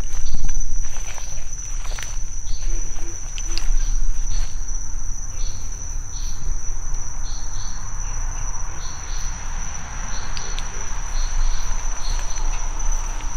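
A steady, high-pitched chorus of crickets or similar insects, with short, repeated chirps above it. Footsteps and the rustle of plants brushing the microphone come through close by.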